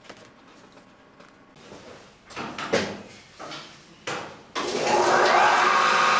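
A few knocks and scrapes, then about four and a half seconds in an old electric motor is switched on and whirs up to speed within a second, its pitch rising and then holding steady as it drives a roughly 110-year-old bandsaw through a flat belt. The saw's wheels turn on oil-filled plain bearings.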